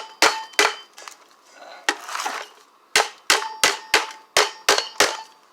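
Hammer blows on a garbage disposal's metal housing, ringing clangs struck to knock the stuck housing apart. Two strikes, a short pause with some scraping, then a run of about seven quick strikes, roughly three a second.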